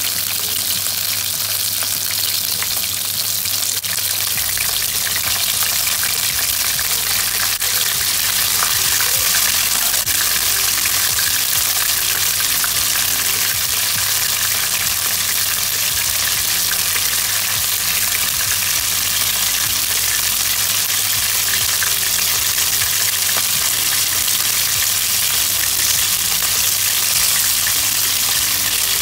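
Whole king prawns frying in hot oil in a non-stick pan: a steady sizzle that holds evenly throughout.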